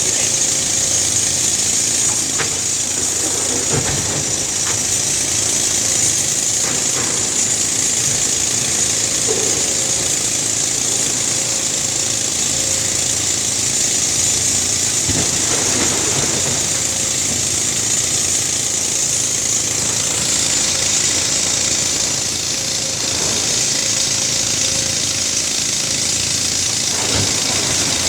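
Case excavator's diesel engine running steadily under working load, with a few short knocks from the digging work.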